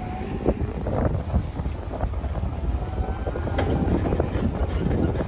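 Low steady engine rumble of a quad or utility vehicle on the move, with wind buffeting the microphone and faint distant voices.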